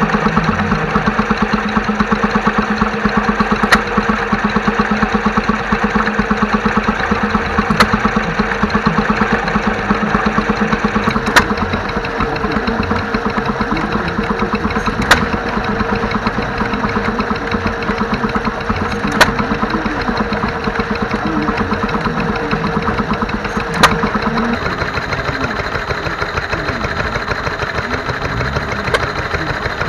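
Vintage stationary engines running in turn, a Petter M-type oil engine, then a 1915 Amanco engine, then a small engine driving a generator, with a steady rapid chugging and a sharp, louder bang about every four seconds. The engine sound changes about 24 seconds in.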